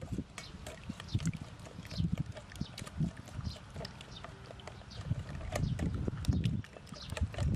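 Raw eggs being mixed by hand in a stainless steel bowl: wet squelching and small clicks against the metal, over a low rumble.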